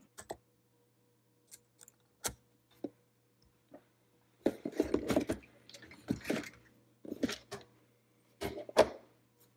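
Small hard parts being handled on a workbench: a few scattered single clicks, then several short bursts of clicking and clattering of plastic and metal pieces being picked up and set down.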